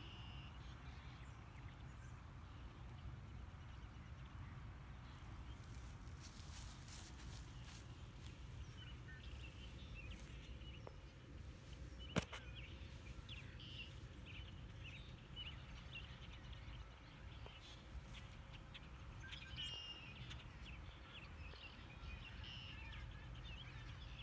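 Faint outdoor ambience: a steady low rumble with scattered short bird chirps, more of them in the second half, and one sharp click about twelve seconds in.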